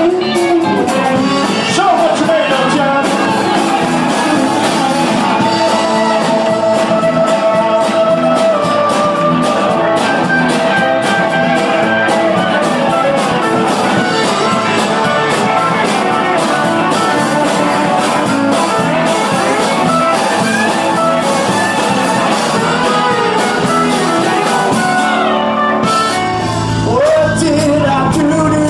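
A live country band playing with a singer and guitar, recorded on a cellphone. Near the end the music breaks and another song picks up with a heavier bass.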